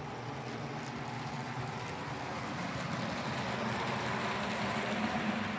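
Model diesel locomotive and its freight cars running on the layout's track: a steady motor hum and the rush of wheels on rail, growing a little louder as the train passes close about four seconds in.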